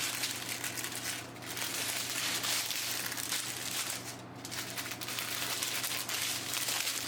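Small plastic packets of diamond-painting drills crinkling and rustling as they are handled and sorted, with brief lulls a little over a second in and about four seconds in.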